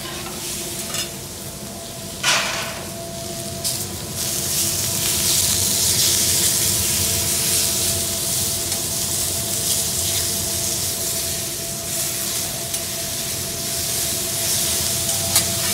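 Chicken, shrimp and vegetables sizzling on a teppanyaki flat-top griddle, the sizzle growing louder about four seconds in. A few sharp clicks of the chef's steel knife and spatula against the griddle, over a faint steady hum.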